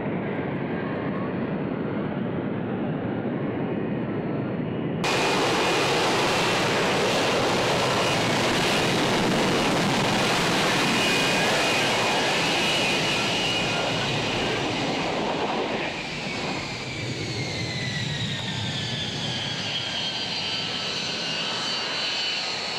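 F-35B jet engine and lift fan running loudly in a hover, a steady dense rush that jumps louder about five seconds in. About two-thirds of the way through it eases off, and several high whines glide downward as the engine winds down after a vertical landing.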